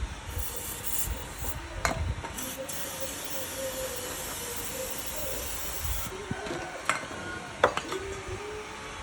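A jet of spray or air hissing steadily for about six seconds, then cutting off, with a few sharp metallic knocks, the loudest near the end.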